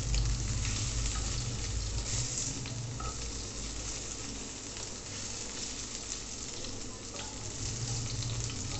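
Pointed gourd (potol) halves sizzling in shallow soybean oil in a pan, a steady frying hiss, with a few light scrapes and taps of a metal spatula as the pieces are turned over.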